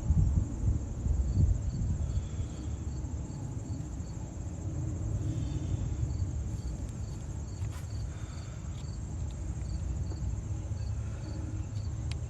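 Insect chirping in runs of short, evenly spaced high pulses, about three or four a second, with pauses between the runs, over a steady low rumble.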